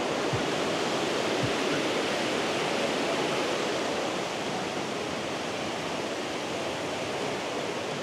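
Rushing water of a river, a steady, even roar with no let-up, easing off slightly about halfway through.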